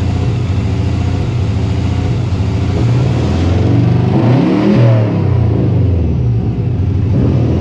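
2002 Subaru WRX's turbocharged flat-four engine running rough at idle, revved once about halfway through and dropping back to idle. The car is misfiring and idling badly, a fault the owner traced to a failed idle air control valve.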